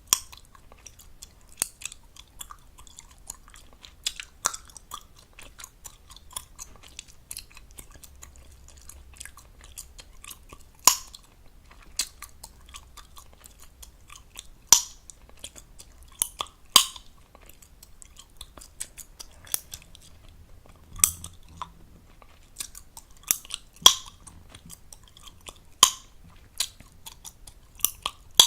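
Gum chewing close to the microphone: wet mouth smacking and clicking, with loud sharp gum pops every second or two.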